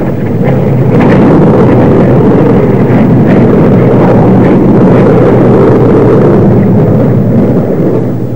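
Jet noise from a formation of Hawker Sea Hawk fighters with Rolls-Royce Nene turbojets flying past overhead: a loud, steady, low rumble that swells about a second in and eases off near the end.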